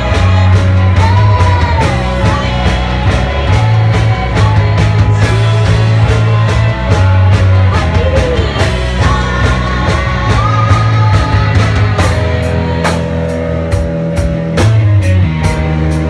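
Live rock band playing loudly: drum kit, guitar and bass, with a voice singing over them.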